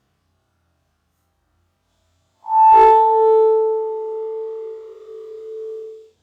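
An iPhone alert sound played in slow motion: one electronic chime that starts suddenly about two and a half seconds in and rings on a low and a higher tone, fading out over about three and a half seconds.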